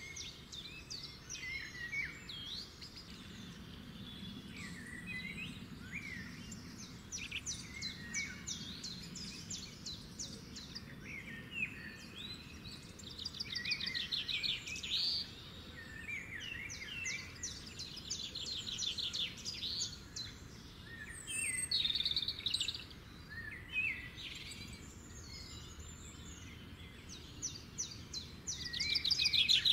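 Small birds chirping and singing, with many overlapping fast trills and short calls, over a faint steady background hiss.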